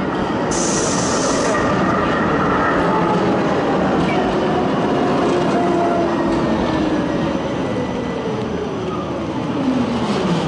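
Oslo SL95 low-floor tram passing close by: steady rumble of steel wheels on the rails, with electric drive whine gliding slowly down in pitch. A brief high hiss comes about half a second in, and near the end a whine dips and rises again.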